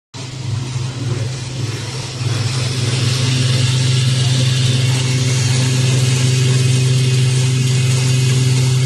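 Automatic hook-and-eye tape sewing machine for bras running steadily: a strong, even motor hum under a high hiss of the mechanism, growing louder about two seconds in.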